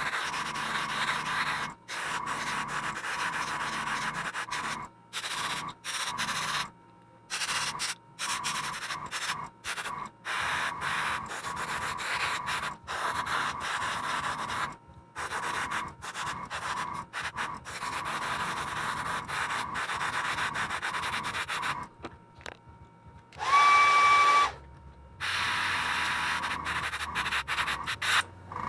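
Gravity-feed airbrush spraying thinned paint in short hissing bursts of air, starting and stopping every second or two as the trigger is worked. About 23 seconds in, one louder burst carries a whistling tone.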